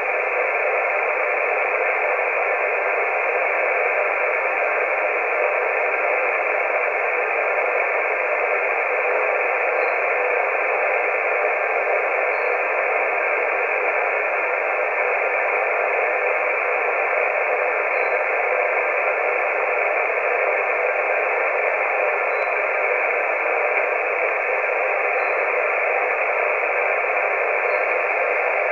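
Steady static hiss from a CB radio receiver on the 11-metre band, with no station transmitting: an even, thin-sounding rush of noise that does not change.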